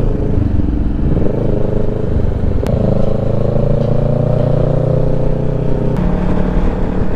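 Kawasaki Ninja 650's parallel-twin engine running under way. The revs climb about a second in, step up near three seconds and drop back about six seconds in.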